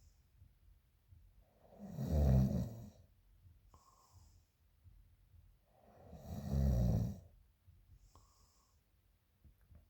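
A woman snoring loudly in her sleep: two heavy snores about four seconds apart, each followed by a softer, airy hiss of breath.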